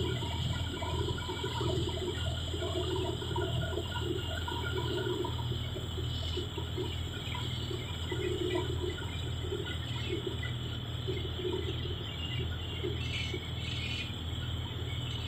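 Sea water rushing and splashing along the hull of a boat under way, over a steady low drone.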